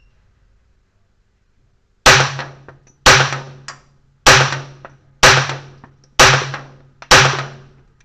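Pistol fired six times at a steady pace of about one shot a second, starting two seconds in, each sharp report followed by a short echo.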